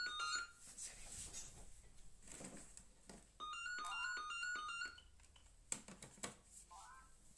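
Phone ringtone: a short electronic melody of quick stepped notes that repeats, ending just after the start and playing again about halfway through.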